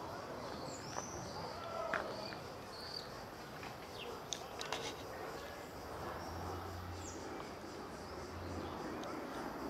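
Outdoor ambience with small birds chirping several times in the first three seconds, a few light clicks and taps, and a low hum for a couple of seconds past the middle.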